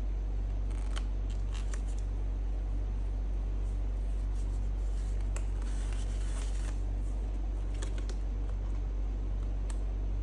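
A steady low hum runs throughout, with faint rustling and light clicks of hands handling the helmet's intercom parts and adhesive, clustered about a second in and again around the middle.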